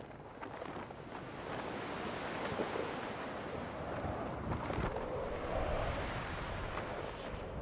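Small lake waves washing onto a sandy shore, with wind: a steady, even wash that builds about a second in and holds.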